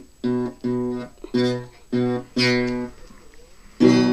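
Acoustic guitar being strummed, one chord every half second or so, then a pause of about a second before a louder strum near the end.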